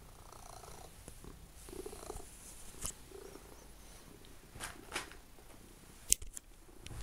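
Domestic cat purring close by, with several sharp clicks and knocks, the loudest about six seconds in.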